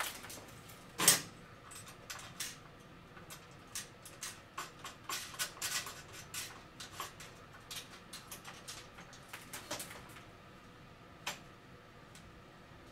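Small metal clicks and rattles of hardware and wiring being handled in the metal frame of a billiard light fixture. A sharper knock comes about a second in, then a busy run of light taps and clinks, and one last click near the end.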